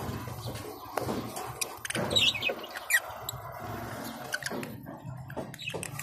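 A parrot giving a few short, high squeaky chirps, the clearest a little past two seconds and around three seconds in, among scattered clicks and taps.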